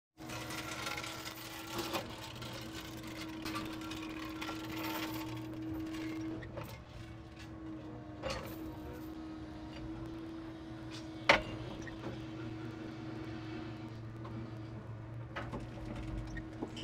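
Timber truck's hydraulic crane at work: the engine and hydraulic pump hum steadily while the grapple handles logs on the load, with a few wooden knocks and clunks, one sharp loud knock about eleven seconds in.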